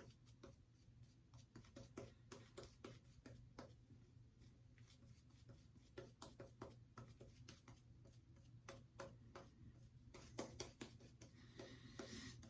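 Faint, irregular clicking and crackling of shaving lather being worked with a synthetic-knot shaving brush, over a low steady hum.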